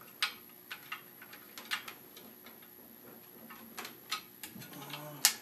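Irregular small plastic clicks and taps as hands work the tubing into the push-fit fittings of a reverse-osmosis/deionization water filter unit. The sharpest click comes near the end.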